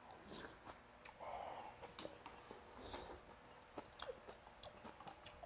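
Faint eating sounds: soft chewing of a mouthful of snakehead-fish porridge, with a few small clicks and a short soft breathy noise about a second in.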